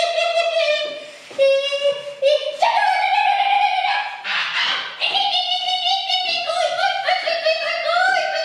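High-pitched wordless singing: long held, wavering notes that glide up and down, with short breaks between phrases.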